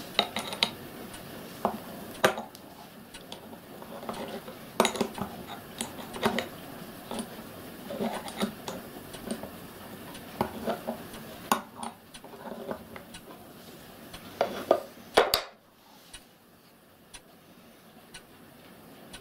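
Metal parts of a model locomotive's gas burner clinking and knocking as they are handled and worked with a hand tool: irregular clicks and taps. The loudest knock comes about three-quarters of the way through, after which only a few faint ticks remain.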